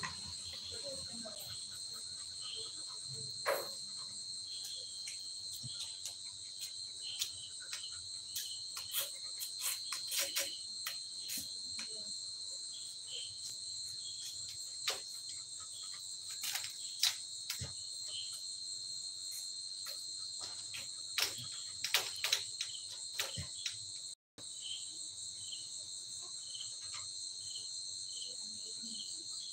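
Steady, high-pitched chorus of night insects trilling without a break, with scattered short clicks and small squeaks over it. The sound cuts out for an instant about three-quarters of the way through.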